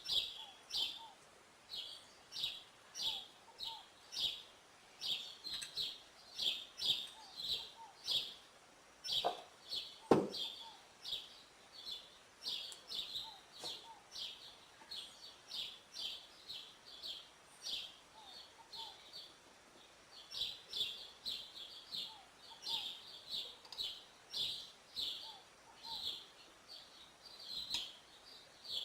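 A bird chirping over and over, short high chirps about twice a second, with a single sharp knock about ten seconds in.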